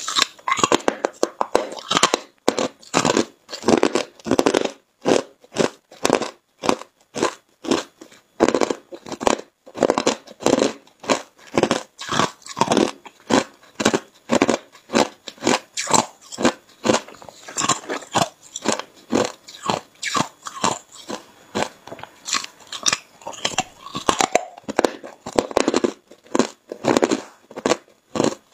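Crunching and chewing of hard frozen purple ice pieces, bite after bite at about two to three crunches a second, picked up close to the mouth by a clip-on microphone.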